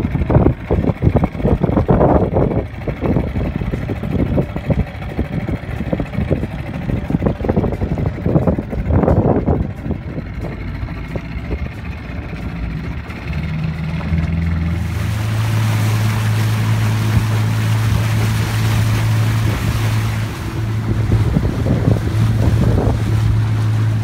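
Small motorboat under way: wind buffets the microphone at first, then about 14 seconds in the engine speeds up to a steady low note and water rushes along the hull at speed.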